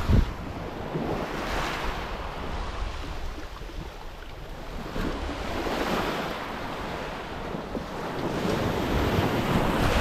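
Black Sea waves breaking and washing up a pebble shore, one wash swelling and ebbing about every three to four seconds, with wind buffeting the microphone and a thump from a gust right at the start.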